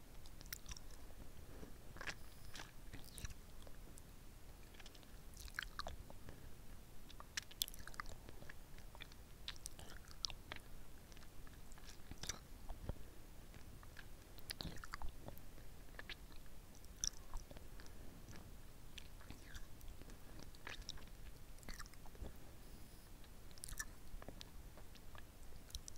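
Close-miked mouth sounds of a hard lollipop being sucked and licked: irregular wet clicks and smacks of lips and tongue on the candy over a low steady hiss from the tiny microphone.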